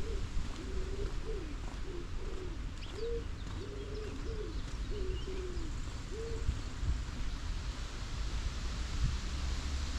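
A pigeon cooing in a repeated rhythmic phrase of soft, low notes, which stops about two-thirds of the way through. A steady low rumble lies underneath.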